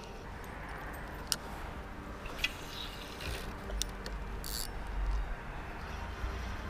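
Spinning reel and line being worked for a cast: a few light clicks, then a brief hiss about four and a half seconds in as the line goes out, over a low steady background rumble.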